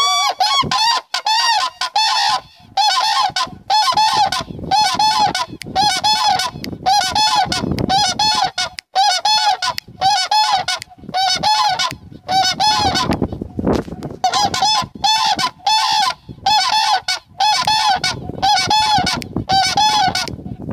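Common cranes (koonj) giving their trumpeting unison call with heads thrown back: loud, repeated bugling notes, each rising and falling in pitch, about one to one and a half a second, with two brief pauses, about nine and thirteen seconds in.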